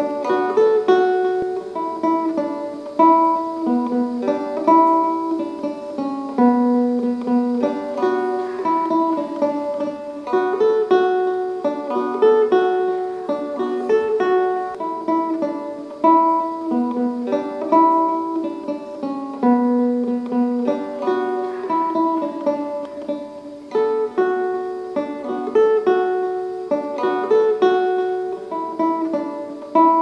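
Acoustic guitar playing a plucked melody, note after note in a steady, regular rhythm.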